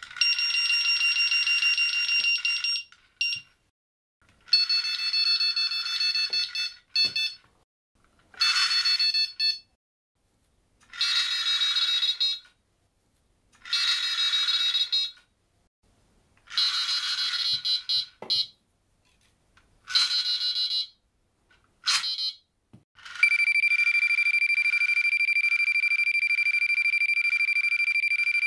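Zfish Merkur electronic carp bite alarm sounding its forward-run (take) signal. It gives a series of rapid beeping bursts, each one to three seconds long, at several different pitches, then one long unbroken tone of about five seconds near the end.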